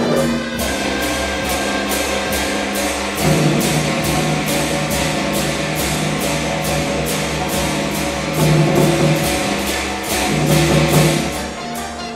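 A Chinese traditional orchestra playing, with the percussion section of large drums and gongs keeping a steady beat of about three strokes a second over sustained ensemble notes.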